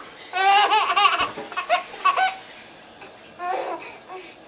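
Baby laughing during peek-a-boo in high-pitched, pulsing bursts: a long laugh about half a second in, two short ones around two seconds, and another softer one near the end.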